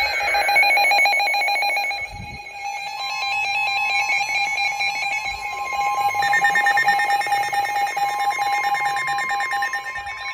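Several NOAA weather radios sounding their alerts together with rapid warbling electronic beeps. A steady single-pitched tone, the broadcast's warning alarm tone, joins about three seconds in.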